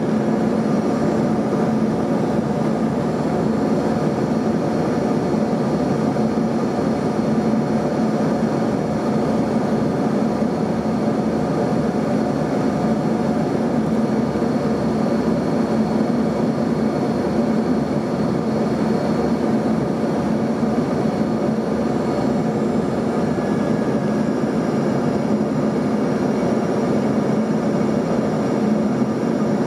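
Steady cabin noise inside an Embraer ERJ-135 regional jet in descent: the even rush of airflow over the fuselage mixed with the hum of its two rear-mounted Rolls-Royce AE 3007 turbofans, with a faint high whine.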